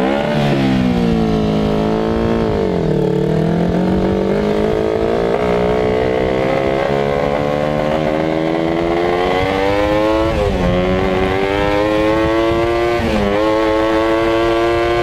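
Kawasaki Ninja 250 parallel-twin motorcycle engine with an aftermarket DG exhaust, driving a shifter buggy under acceleration. The revs climb steadily, dip about three seconds in, then drop sharply and climb again twice near the end as it is shifted up through the gears.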